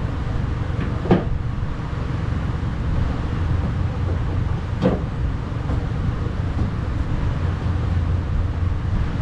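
Two sharp knocks, about four seconds apart, as window regulator parts are handled against the steel inner panel of a pickup's door, over a steady low hum.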